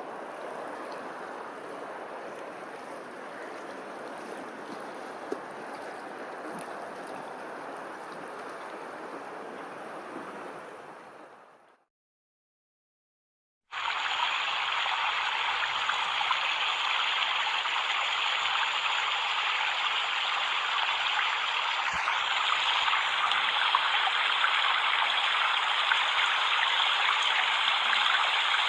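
Running water, a steady rushing of a stream. It fades out just before the middle, there are about two seconds of silence, and then a louder, brighter rush of water cuts in.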